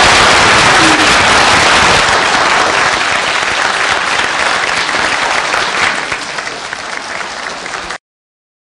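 Audience applauding at the close of a talk, the clapping slowly dying down and then cut off abruptly near the end.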